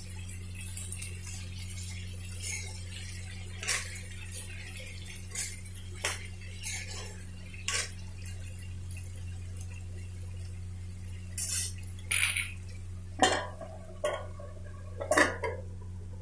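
A metal spoon scraping and clinking against a steel kadhai while diced potatoes and tomatoes are stirred, in short scattered strokes over a steady low hum. In the last few seconds come louder metal clanks as a steel plate is set over the pan as a lid.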